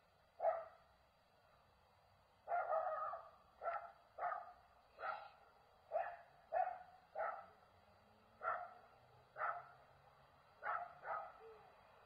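A dog barking repeatedly, about a dozen short barks spaced irregularly a second or so apart, some in quick pairs.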